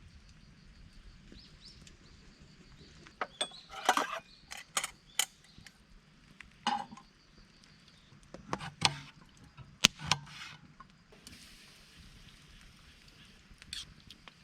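Objects being handled: a series of sharp clicks, clinks and knocks in two clusters, about three seconds in and again about eight to ten seconds in, over a quiet background.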